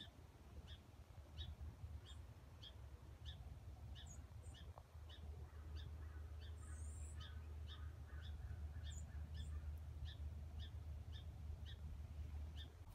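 Small bird calling a short high note over and over, about twice a second, with a few other bird chirps in between, over a faint low background rumble.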